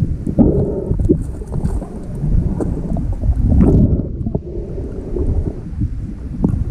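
Muffled, low rumbling and sloshing of river water heard through an action camera's housing held underwater, with scattered soft knocks as the housing is moved about.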